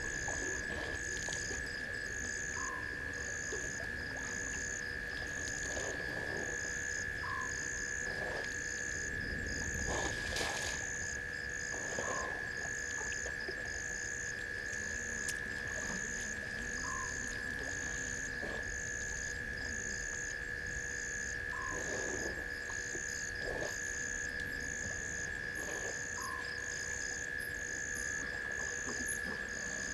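Night chorus of frogs and insects at a waterhole. A continuous high trill runs under short high pulsed calls about once a second, with a brief chirp every few seconds. Now and then comes a short rustle or crack of branches.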